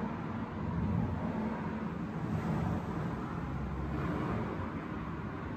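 Honda CB125F's air-cooled 125cc single-cylinder engine idling steadily.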